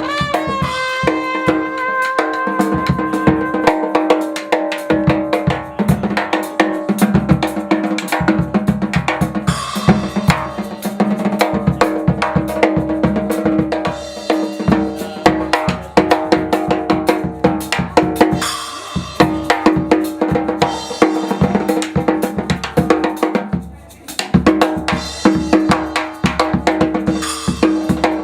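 Live brass band music with a busy drum kit: horns hold notes over fast snare and bass drum strokes, with a brief drop in level about 23 seconds in.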